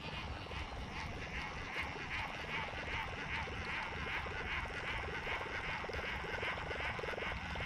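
Frogs calling in a steady chorus of rapid pulsed calls, the pulse groups repeating a few times a second.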